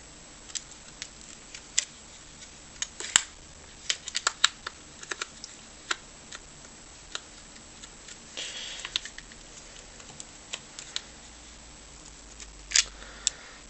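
Irregular sharp clicks and taps of a screwdriver working at a stuck screw in a Bluetooth speaker's housing, with a short scrape about two-thirds of the way through.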